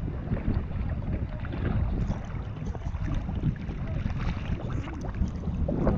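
Sea water sloshing and splashing close to a camera held at the surface, with irregular splashes from snorkelers swimming and kicking fins.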